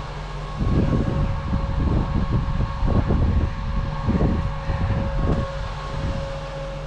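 John Deere 750L dozer's diesel engine idling, with a steady whine over the hum and uneven low rumbling on top.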